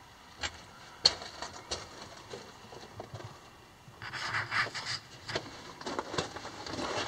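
Footsteps crunching and scuffing on the rocky floor of a mine tunnel, with scattered clicks and scrapes. A sharp knock about a second in is the loudest sound, and the crunching gets denser about four seconds in.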